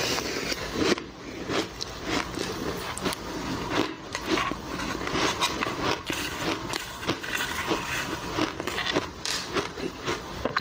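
Crushed ice being crunched and chewed close to the microphone: a dense, irregular run of crackles and cracks, with a metal spoon scraping through ice in the bowl.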